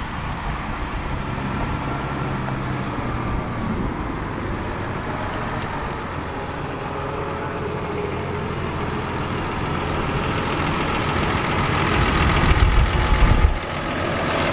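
Tractor diesel engine running steadily, with a louder low rumble for about a second and a half near the end.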